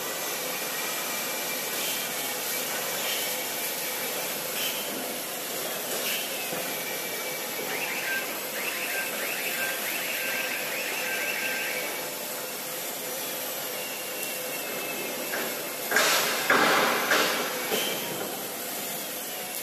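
Steel fabrication shop noise: a steady hiss and hum of machinery with scattered metal knocks, a run of rapid regular ticking with a faint tone in the middle, and a cluster of loud steel-on-steel clanks near the end as a crane-hung steel girder section is set down on a plate.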